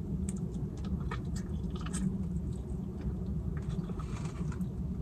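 A person chewing a soft, baked (not crispy) chicken wing close to the microphone: irregular wet clicks and smacks of the mouth, over a steady low hum.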